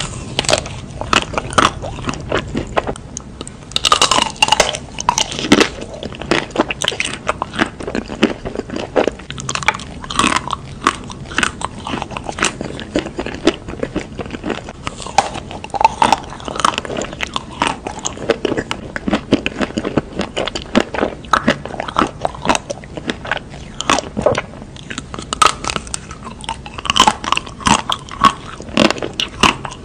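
Someone biting and chewing a chocolate-coated ice cream bar with nut pieces in the shell: the hard chocolate coating cracks and crunches in a steady run of irregular sharp crackles, bite after bite.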